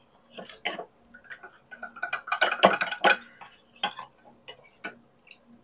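A metal spoon stirring cornflour into a little water in a small ceramic bowl, clinking and scraping against the bowl in quick irregular strokes, to make a slurry for thickening the filling.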